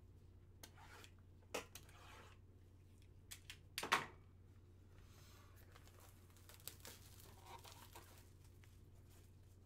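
Cardboard card boxes and their wrapping handled and torn open by gloved hands: a few sharp crackles, the loudest about four seconds in, then softer rustling and tearing of card stock over the next few seconds.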